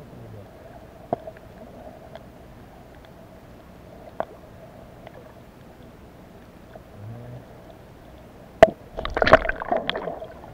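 Muffled underwater sound picked up by a camera below the surface: a steady faint hum with a few scattered clicks. Near the end comes a sharp knock, then about a second of water sloshing and gurgling close to the camera.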